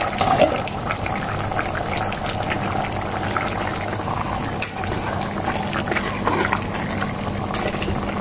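Pork hamonado's soy-and-pineapple braising sauce bubbling at a steady simmer in an uncovered pot, with many small pops and crackles.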